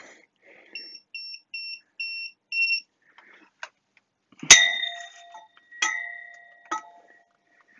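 ANENG 620A multimeter beeping in non-contact voltage mode: a run of short, high beeps, about two a second, which signal that it senses voltage on a nearby live cable. After the beeps stop, three sharp knocks follow, each with a short ringing tone, the loudest about halfway through.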